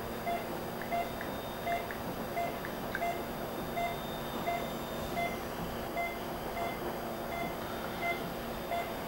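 Patient monitor's pulse oximeter beeping with each heartbeat: short, even beeps a little under one and a half a second, over a steady background hum of equipment.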